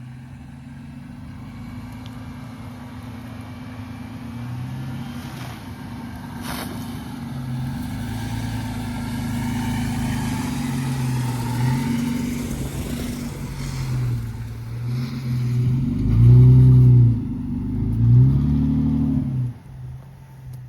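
Vehicle engine running steadily and growing louder, then revved twice with rising and falling pitch near the end before the sound drops away.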